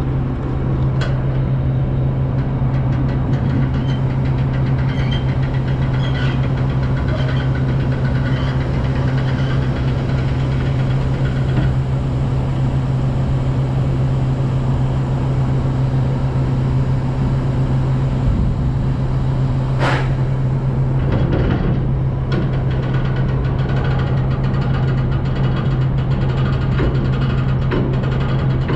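Steady, loud machinery hum at a grain elevator's dump pit as a hopper-bottom grain trailer is unloaded, with one sharp click about twenty seconds in.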